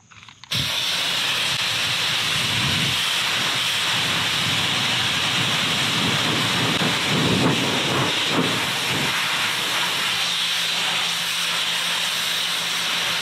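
Pressure washer blasting a jet of water onto a boat's fiberglass hull: a loud, steady hiss that switches on abruptly about half a second in.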